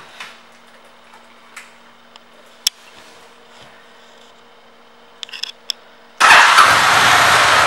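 A few light handling clicks, then about six seconds in the Honda VTX 1300C's V-twin engine comes in suddenly and runs loud and steady.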